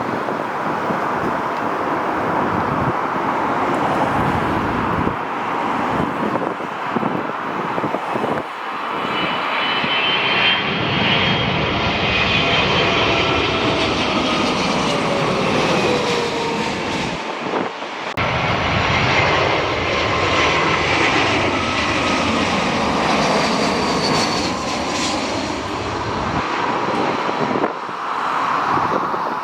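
A jet airliner's engines rushing loudly as the plane passes by, with a whine that slides down in pitch as it goes past.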